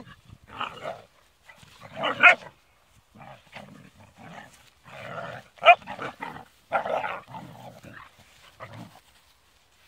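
Rhodesian Ridgeback puppies barking and growling at each other as they play-fight, in repeated short outbursts. The loudest comes about two seconds in, with a sharp bark near the middle.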